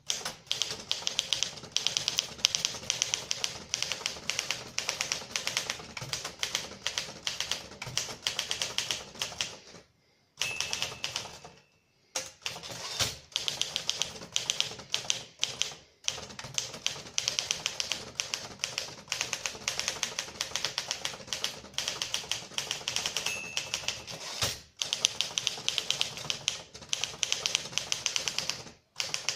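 1956 Torpedo 18 manual portable typewriter being typed on: its typebars strike in rapid runs of many clicks a second, broken by a few short pauses.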